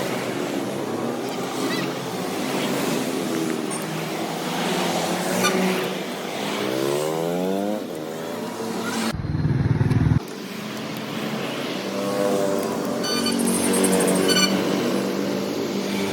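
Motor vehicle engine noise with street sounds; an engine revs up, its pitch rising, about seven seconds in, and the sound changes abruptly about nine seconds in.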